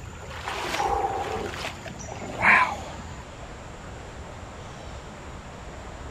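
Shallow creek running over riffles, a steady rush of water, with a brief loud sound about two and a half seconds in.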